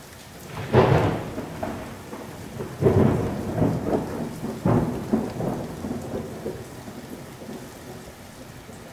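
Thunderstorm: steady rain with three cracks of thunder, about a second in, near three seconds and near five seconds, each rumbling away before the next.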